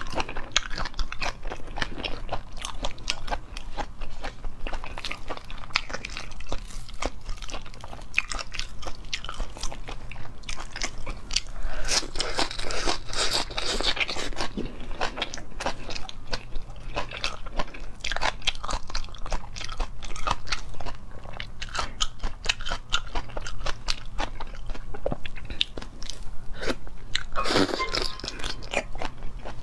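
Close-miked eating: steady crunching, biting and chewing with wet mouth clicks, louder for a couple of seconds near the middle and again near the end.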